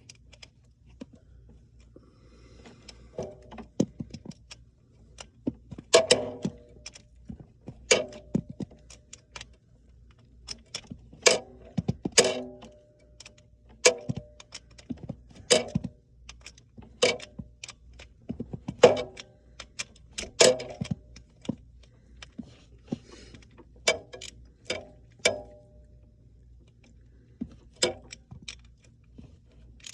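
Metal hand tools and small hardware clicking and knocking irregularly, one or two strikes a second, some with a short metallic ring, while wires are fastened to the solenoid's terminals.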